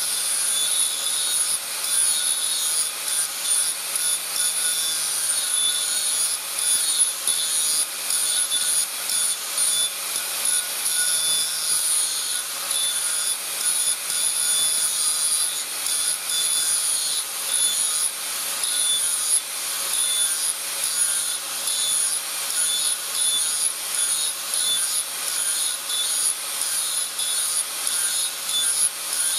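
Electric angle grinder running steadily with a constant motor whine while its disc grinds a forged steel axe head, the harsh grinding hiss swelling and easing in short repeated passes as the disc is pressed on and eased off.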